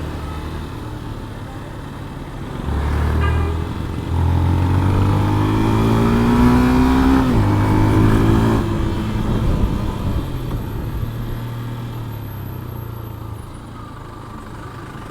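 Yamaha FZS V3 motorcycle's single-cylinder engine, with a modified exhaust, pulling under acceleration while riding. The engine pitch rises steadily, drops suddenly at a gear change about seven seconds in, climbs briefly again, then eases off.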